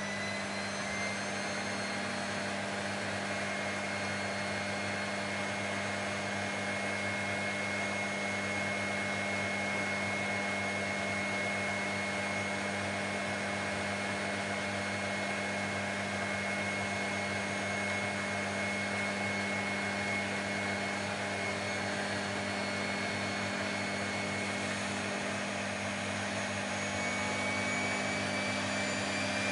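Vacuum cleaner running steadily: a continuous rush of air under a high, held motor whine. Near the end the whine's pitch creeps slightly upward.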